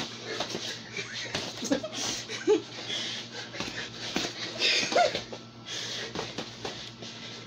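Boxing gloves slapping and thudding during close sparring, with scuffing feet, breathing and a few short grunts, the loudest about two and a half and five seconds in.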